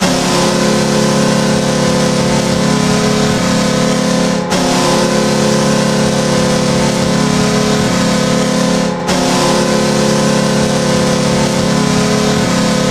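Buffalo Sabres goal horn sounding three long blasts of about four and a half seconds each, a low chord of several held tones with only brief breaks between them, signalling a Sabres goal.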